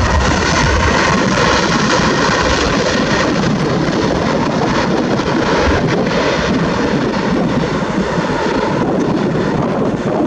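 Jet airliner engines at takeoff thrust, a loud steady rush of engine noise. The deep rumble eases about a second in, and the noise begins to fade near the end as the aircraft climbs away.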